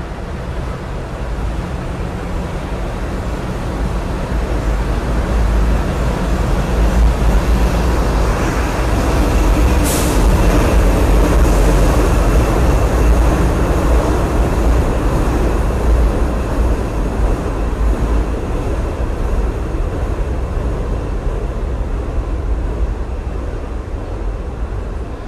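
Diesel switcher locomotive and its train of flatcars passing slowly: a steady low engine drone and rumble of wheels on rail, growing louder as the locomotive comes past and easing as it draws away. A short sharp sound cuts through about ten seconds in.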